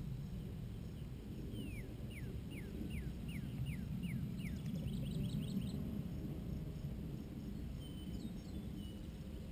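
Wind rumbling on the microphone, with a bird singing a run of about eight quick down-slurred whistles, roughly three a second, starting about a second and a half in, followed by a few higher rising notes.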